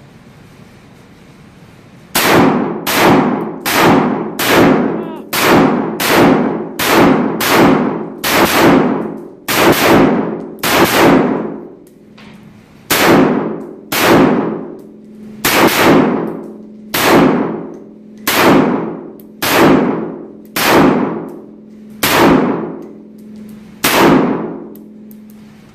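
Springfield Armory Saint AR-15 pistol with a 7.5-inch barrel firing .223 rounds, loud and sharp, each shot trailing a long echoing ring. About a dozen shots in a brisk string come a second or two in, then after a short pause about ten more follow, spaced a little further apart.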